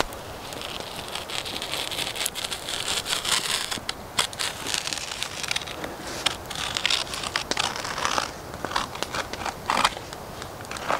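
Wood fire crackling: irregular sharp pops and snaps over a steady hiss.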